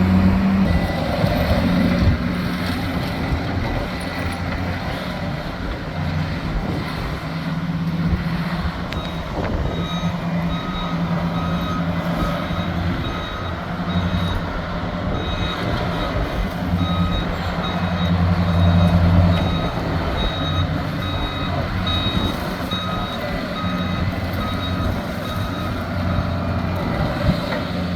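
Engine of a bucket loader running steadily under work, rising briefly about two-thirds of the way through. From about a third of the way in, its backup alarm beeps in an even repeating pattern as the machine reverses.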